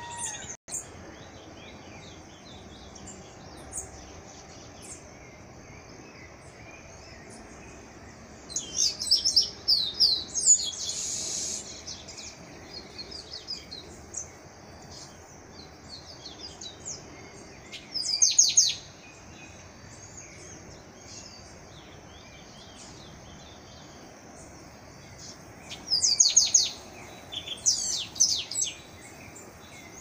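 Chestnut-capped blackbird (garibaldi) singing in three short bouts of quick high notes, with long pauses between, over steady outdoor background noise.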